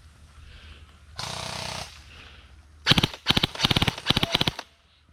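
Airsoft guns firing on full auto: first a short, steady buzzing burst, then about three seconds in three rapid, loud bursts of fast clicking shots in quick succession.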